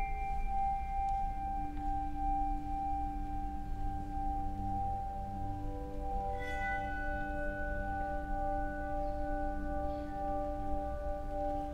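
Handbell ensemble playing a slow, soft passage of sustained ringing notes: one high note holds throughout while new bells sound and ring on about two seconds and six seconds in.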